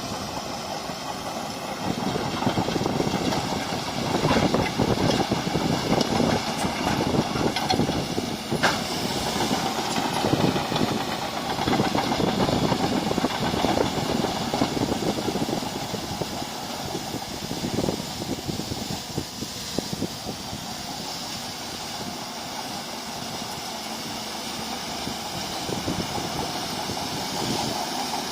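Bulldozer's diesel engine running with a jumble of clanks and rattles for most of the stretch, easing to a steadier engine sound near the end. A steady high whine sits over it throughout.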